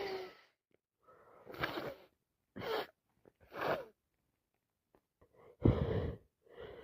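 A woman with a heavy cold making a run of about five short, breathy gasps and sniffs between sneezes, the catching breaths that build up to the next sneeze. The last of a sneeze fades at the start, and the loudest gasp comes near the end.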